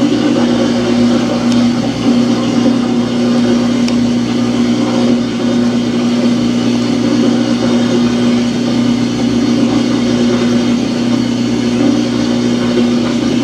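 Samsung washing machine running with a loud, steady droning hum.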